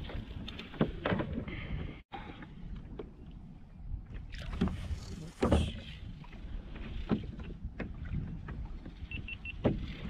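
Water lapping against a kayak hull under a steady low rumble of wind on the microphone, with scattered knocks of gear against the hull and one louder splash and knock about halfway.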